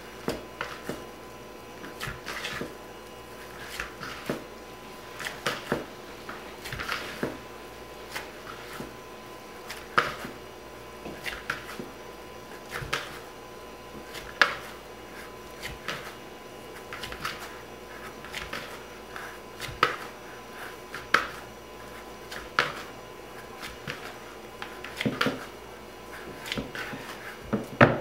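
Hands kneading pizza dough in a bowl: the dough is folded over and pressed down firmly, giving soft, short squishing presses about every second or so.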